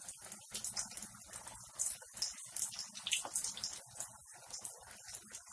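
Potato tikkis frying in very hot oil in a kadhai: a steady sizzle with many small irregular crackles and pops.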